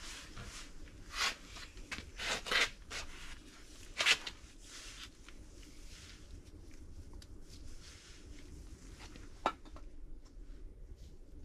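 Light handling noises as a dial indicator and clamp are set up on an aluminium engine block: scattered rustles and scrapes, a few louder ones in the first half, and a single sharp click near the end.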